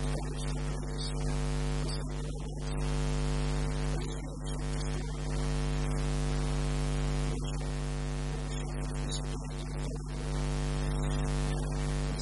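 Loud steady mains hum, a buzz of evenly spaced overtones over a constant hiss.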